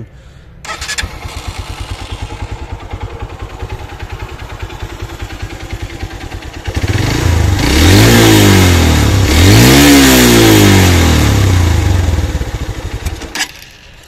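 Honda CB150F's 149 cc single-cylinder four-stroke engine starts about half a second in and idles with a steady pulse. It is then revved up twice, the pitch climbing and falling each time, drops back to idle and is switched off near the end. It has a smooth, not too loud exhaust note.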